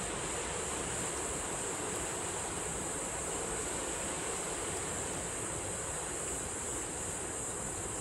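Waves washing over a rocky shore in a steady wind, with a constant high-pitched hiss above it.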